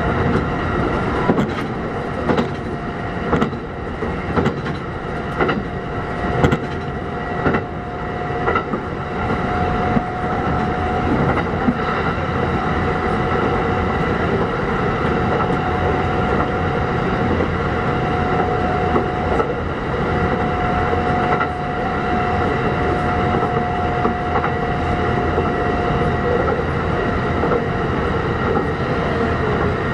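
Running sound from aboard a Kintetsu 1201 series electric train: steady rolling noise under a held tone. The wheels clack over the rails about once a second for the first nine seconds or so, then the run goes on smoothly.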